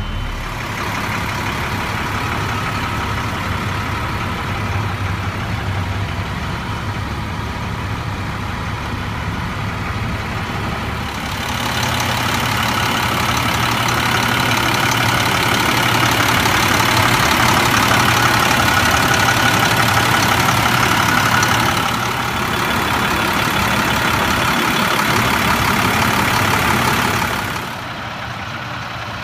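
International DT466E turbo diesel engine idling steadily. It sounds louder and brighter, with more hiss and whine, about eleven seconds in, when heard at the open engine bay, and drops back to a quieter idle near the end.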